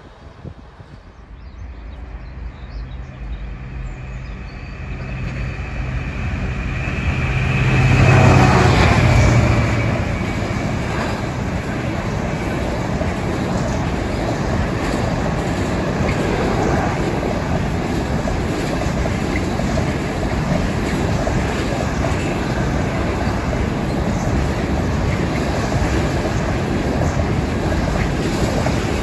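Intermodal container freight train passing below. The locomotive approaches and goes by, loudest about eight seconds in. A long rake of container wagons then rolls past with steady wheel-on-rail noise.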